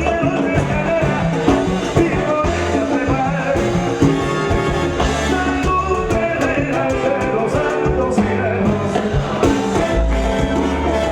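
Salsa band playing, with singing over held instrumental lines and a steady percussion beat.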